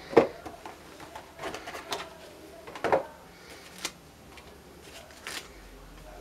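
Hands handling a model-airplane box and its white foam packing insert: scattered scrapes, rustles and knocks, the loudest just after the start and near three seconds.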